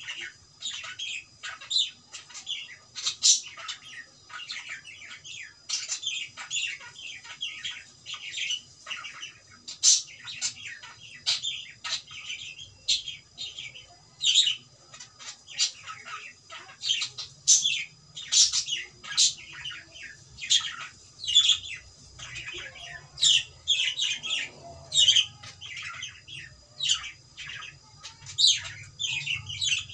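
Pet cockatiel chirping and squawking, a constant stream of short high calls with louder, sharper ones every second or so.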